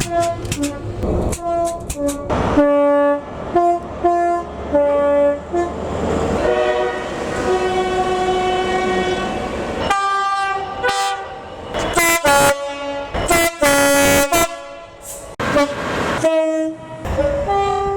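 Locomotive horn played as a tune: a quick run of many short toots on several pitches, with a held stretch around the middle as the noise of the moving train swells under it.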